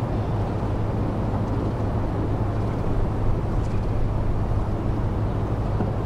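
Steady low rumbling outdoor background noise with no clear rhythm, and a faint short high chirp about halfway through.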